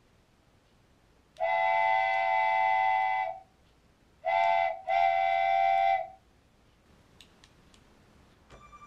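Multi-tone train horn sounding three blasts, long, short, long, each a steady chord of several notes. A few faint clicks follow near the end.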